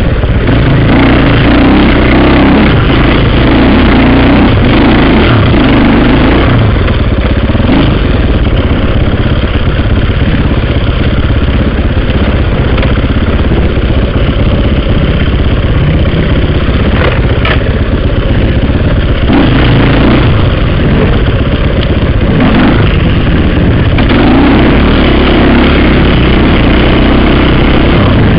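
Dirt bike engine running loud and close, heard through a helmet-mounted camera, with the engine note changing in stretches as the throttle varies.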